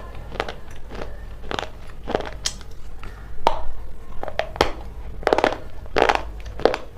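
A person biting and chewing crunchy food close to the microphone: a run of sharp, crisp crunches at uneven spacing, about one or two a second.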